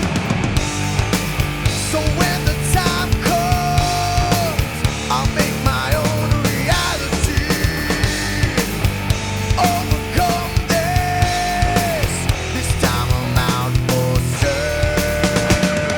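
Nu metal band recording: distorted guitars, bass and a driving drum beat, with sliding, wavering high notes laid over it.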